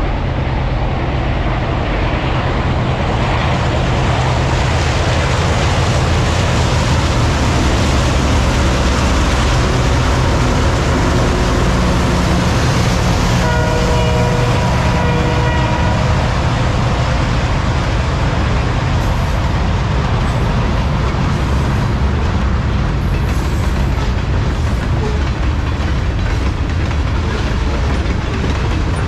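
Freight train passing close by: Alco diesel locomotives running with a deep, steady engine drone working upgrade, then a long string of freight cars rolling and clattering over the rails. A train horn sounds for about two seconds around the middle.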